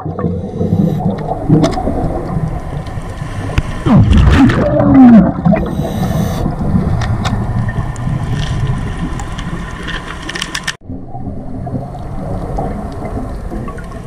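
Underwater sound through a camera housing: a steady low rumble of water, with a loud gurgling burst of a diver's exhaled bubbles about four to five seconds in. The sound cuts out for an instant just before eleven seconds.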